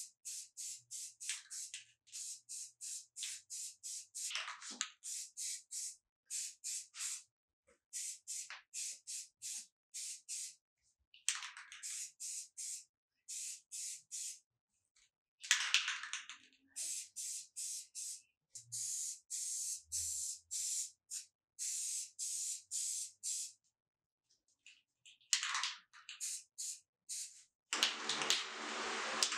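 Aerosol spray can of grey primer hissing in quick short bursts, about two to three a second, with a few longer sprays held for a second or two. Near the end a steady rushing noise takes over.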